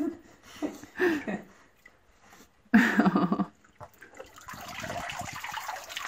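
Water sloshing in a shallow pool, then from about four seconds in a steady pouring and dripping as a small life-vested dog is lifted out and water streams off it. Two short bursts of a voice about one and three seconds in.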